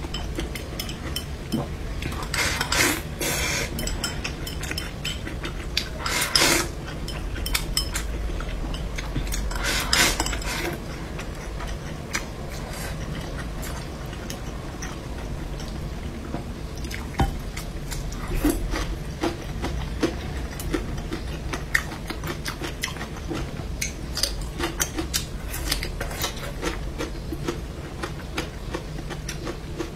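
Close-miked eating: chopsticks clicking and scraping against a ceramic rice bowl and plate, with chewing, and a few louder noisy bursts about 3, 6 and 10 seconds in.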